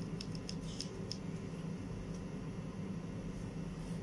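A steady low hum, with a few faint light ticks in the first second or so as a packet of food colour powder is tipped and tapped over a bowl.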